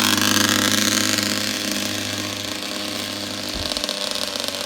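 Snowmobile engine running at a steady pitch, getting somewhat quieter over the first couple of seconds and then holding steady. A short low thud about three and a half seconds in.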